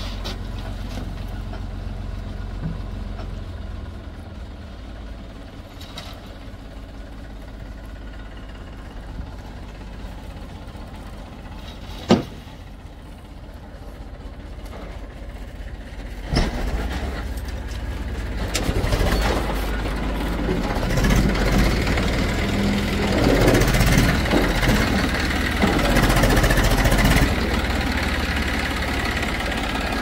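Eicher 380 tractor's diesel engine running while its hydraulic tipping trolley dumps a load of soil. About halfway it gets louder and rougher as the bed tips further and the soil slides out, with one sharp knock a little before that.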